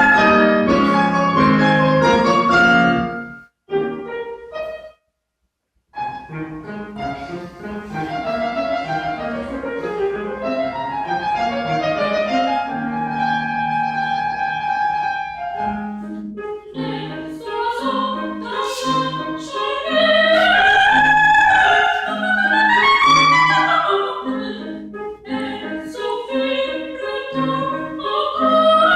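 Live music: a wavering lead melody over an evenly pulsing low accompaniment. The music breaks off about three and a half seconds in, goes silent for a moment, and starts again about six seconds in.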